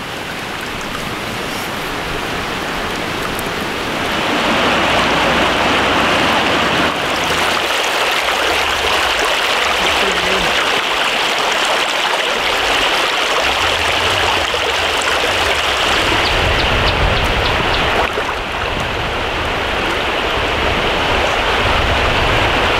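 Shallow, rocky creek running over stones: a steady rush of flowing water, growing louder about four seconds in.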